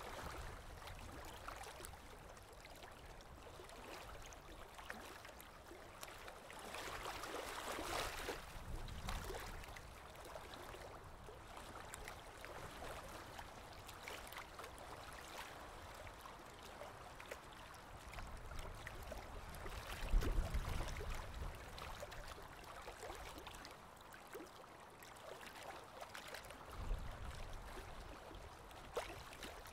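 Faint handling noise of battery cables being fitted to an inverter's battery terminals and a lead-acid battery's screw terminal: scattered small clicks and rustles over a steady hiss, with a louder bump about twenty seconds in.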